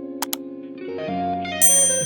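Background music led by guitar: held notes give way to new chords about a second in, with a bright high note near the end.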